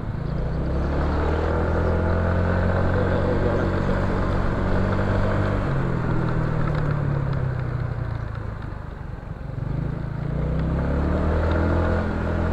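Motor scooter engine running while riding. It holds steady, drops in pitch about halfway through as the throttle eases off, goes quieter a little later, then revs back up near the end.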